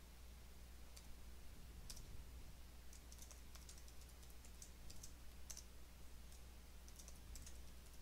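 Faint computer keyboard keystrokes in short scattered clusters over a low steady hum, as a reply and a new password are typed in.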